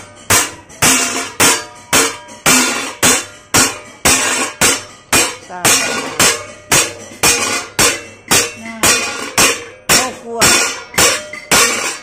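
A hand hammer strikes a sheet-metal gong blank on an anvil in a steady rhythm, a little over two blows a second, each with a short metallic ring. This is the raised centre boss of the gong being hammered into shape.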